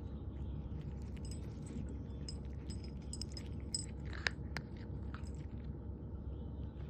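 Light metallic tinkling and soft clicks, with two sharper clicks about four seconds in, over a steady low hum.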